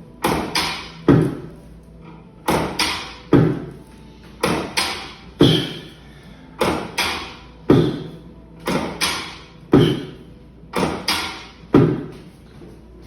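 Sharp thuds in a steady rhythm: groups of three hits, the third the loudest, repeating about every two seconds.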